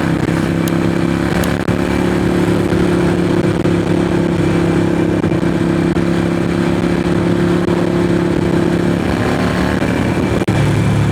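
Harley-Davidson Forty-Eight's V-twin engine running at a steady cruise through straight shotgun Vance & Hines exhaust pipes, heard from a mic inside the rider's helmet with wind rushing past. The engine note holds almost the same pitch throughout, with a brief drop in level about ten and a half seconds in.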